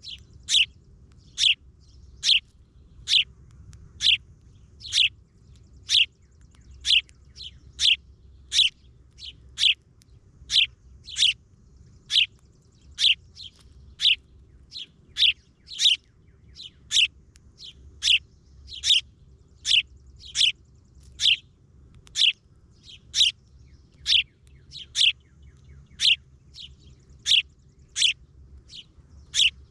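A small bird chirping over and over, short sharp chirps that each drop quickly in pitch, evenly repeated about one and a half times a second.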